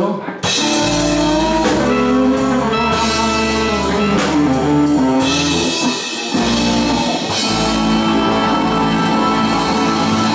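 Live blues band playing an instrumental passage: guitar lines over a steady bass line and drums with cymbal hits.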